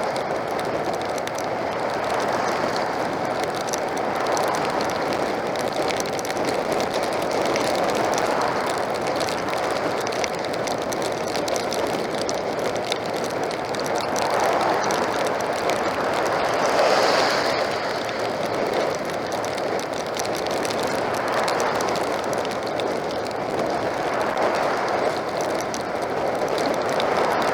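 Steady rushing wind and wet-road noise of a two-wheeler being ridden through heavy rain, rising and falling in slow swells, with one louder surge about two-thirds of the way through.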